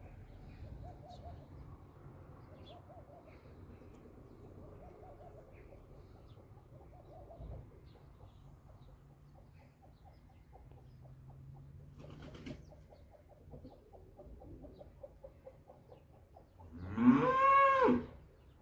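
A cow moos once near the end: a single loud call about a second long that rises and then falls in pitch.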